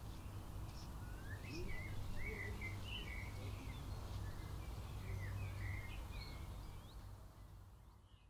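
Outdoor ambience of several small birds chirping over a low steady rumble, the whole fading out near the end.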